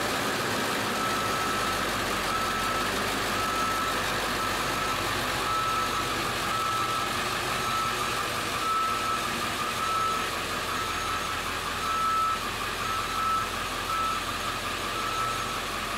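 Backup alarm beeping about once a second as a Ford E350 shuttle bus with a 7.3 diesel reverses, its engine running under the beeps.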